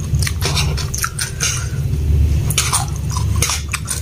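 Close-miked chewing of a mouthful of spicy instant noodles, a string of short sharp mouth clicks and smacks. A steady low rumble runs underneath, the sound of motorbikes going by.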